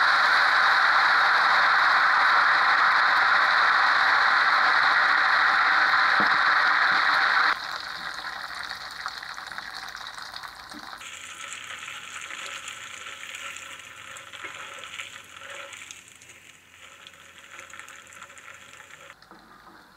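Kremes batter frying in hot oil in a wok: a loud, dense sizzle that drops off sharply about seven and a half seconds in, then a quieter sizzle and crackle that fades toward the end.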